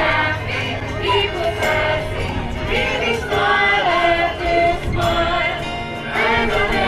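A choir singing a Christmas carol, several voices holding long notes together.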